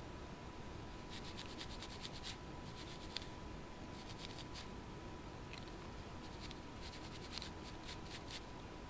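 Small hardware being handled on a workbench: faint rubbing with scattered light clicks and ticks that come in short clusters, over a faint steady hum.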